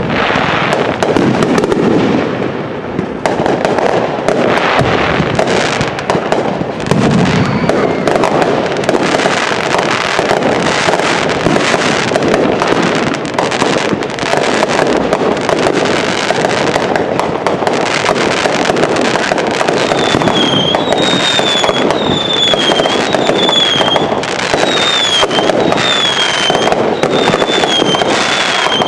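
Fireworks finale barrage: a dense, continuous run of bangs and crackling. From about two-thirds of the way in, a series of short falling whistles sounds about once a second over the bangs.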